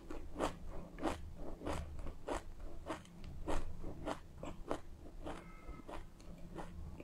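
A person chewing a mouthful of raw white sesame seeds: a steady run of crisp crunches, about two a second.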